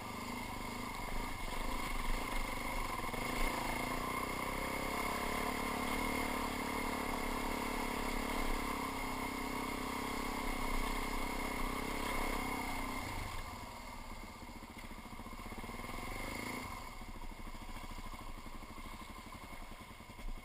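Dirt bike engine pulling steadily under throttle along a rough trail. About two-thirds of the way through, the throttle is closed and the engine drops back toward idle as the bike slows to a stop.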